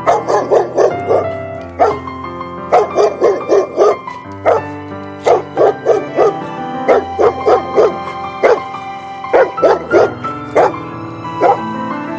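Dog barks set over backing music: repeated quick runs of short barks, with a single bark between runs.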